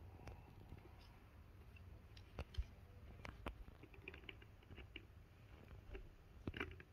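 Faint, scattered clicks and taps of a cat pawing at the balls in a plastic three-tier ball-track cat toy, with one louder knock about two and a half seconds in.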